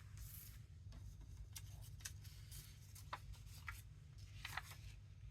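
Faint rustles and light taps of paper sheets being handled and laid down, a few separate sounds over a low steady hum.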